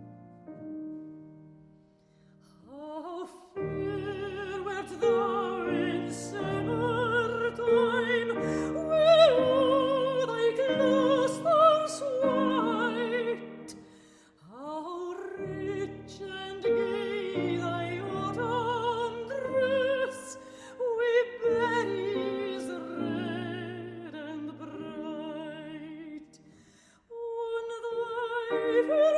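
Operatic singing with strong vibrato over piano accompaniment, in long phrases with short pauses about halfway through and near the end.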